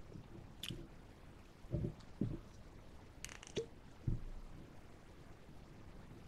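Small tabletop handling noises: a few soft thumps and sharp clicks as mugs and a small plastic bottle of coffee concentrate are picked up and handled.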